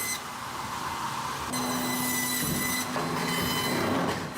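Industrial log-processing line machinery running: a steady mechanical din with a thin high-pitched squeal, joined by a steady low hum about a third of the way in.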